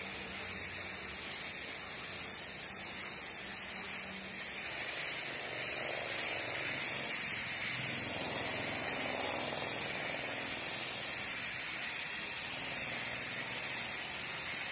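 Compressed-air spray gun spraying melamine finish: a steady hiss of air and atomised lacquer.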